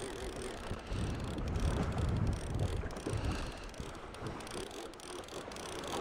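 Line-counter baitcasting reel being cranked to bring a hooked fish to the boat, its gears whirring with faint ticks. Wind rumbles on the microphone, heaviest about a second or two in, over water against the boat.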